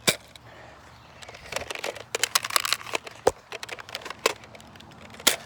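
Footsteps crunching through dry leaves and twigs: irregular crackling and snapping that gets busier about a second and a half in, with a few sharper snaps.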